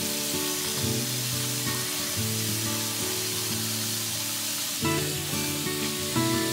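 Kitchen faucet running steadily into a stainless steel sink while hands are washed under the stream, over background music.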